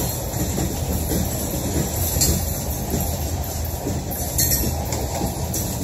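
Loaded coal hopper cars of a freight train rolling past: a steady low rumble of wheels on rail, with a few brief high scrapes of wheels rubbing against the rail.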